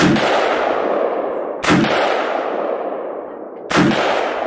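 AR-15 rifle in .223 fired three times, about two seconds apart. Each shot is followed by a long echoing tail.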